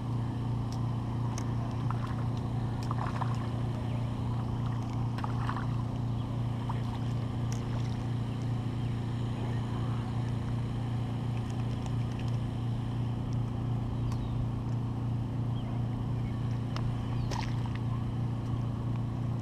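A steady low motor hum holding one even pitch, with a few faint scattered clicks.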